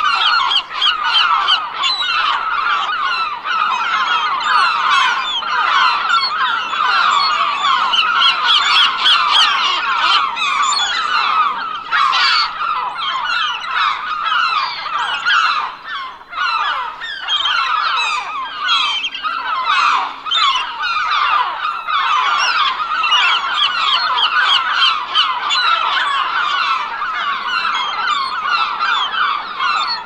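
A large flock of gulls calling continuously, many harsh cries overlapping with no break, with a brief lull about halfway through.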